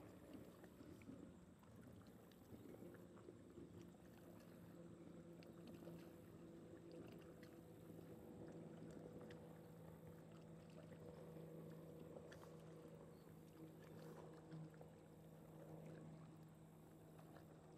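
Near silence with a faint, steady hum of a boat motor, a little stronger in the second half.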